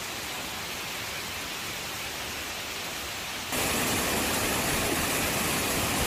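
Rushing water of a rocky jungle waterfall and stream, a steady rush that gets suddenly louder about three and a half seconds in.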